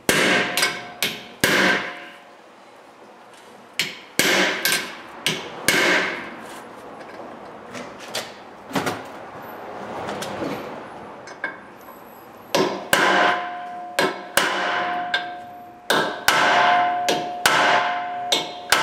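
Hammer blows, metal on metal, on a tool set against a rusted brake rotor retaining screw to break the rust loose on its threads. The blows come in short runs: a quick flurry, a few spaced strikes, then a long run near the end that leaves a ringing metallic tone.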